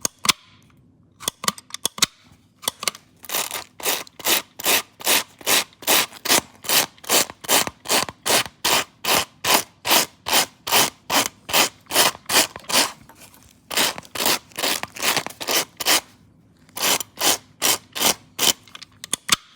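Slicker-style dog brush with retractable pins scraped in quick, even strokes across clogged Velcro hook tape, about two to three strokes a second, in three runs with short pauses between. The pins are dragging packed dog hair and lint out of the hooks.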